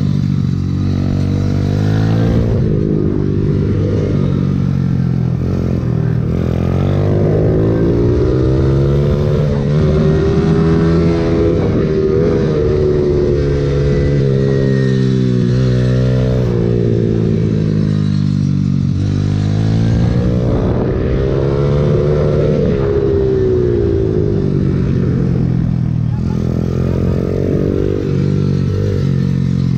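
Pit bike engine revving hard from on board, its pitch climbing under acceleration and dropping as the throttle is eased off, over and over.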